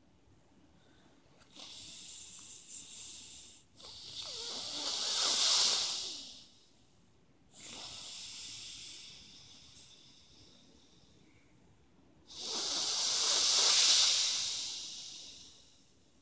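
A man's slow, hissing breaths close to the microphone, in two rounds: a quieter breath of a few seconds, then a louder one that swells for about two seconds and fades.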